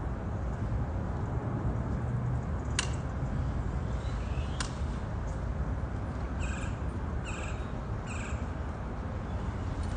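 Outdoor ambience: a steady low rumble, two sharp clicks near the middle, then three short bird calls about a second apart.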